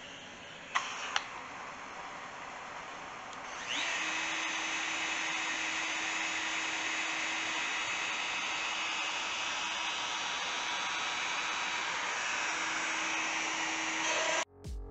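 Makita trim router on a Shapeoko CNC spinning up about four seconds in with a short rising whine, then running steadily at speed. Before that there is a low steady hiss and two sharp clicks about a second in.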